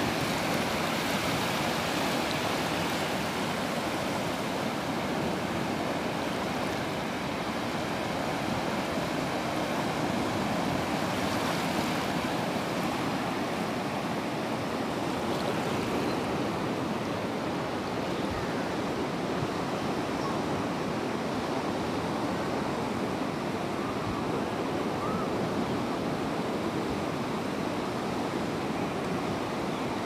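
Small surf waves washing onto a flat sandy beach, a steady rushing wash with no distinct breaks.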